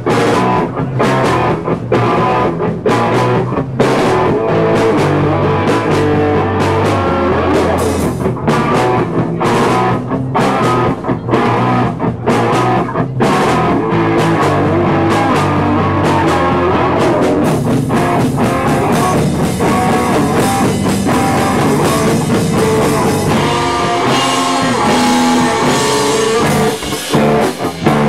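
Live punk rock band playing loud: electric guitar, bass guitar and drum kit, instrumental with no vocals, with a few short breaks near the end.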